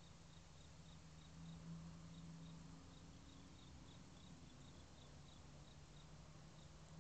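Near silence, with a faint cricket chirping high-pitched about four times a second, over a low steady hum.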